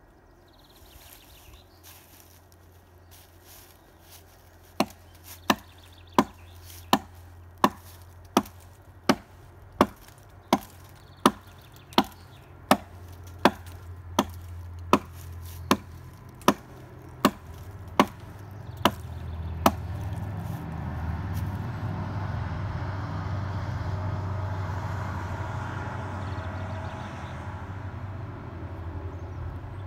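A hatchet chopping into a fallen tree trunk: about twenty sharp, evenly paced strikes, roughly one every 0.7 seconds. After the chopping stops, a steady rumbling noise swells up and slowly fades.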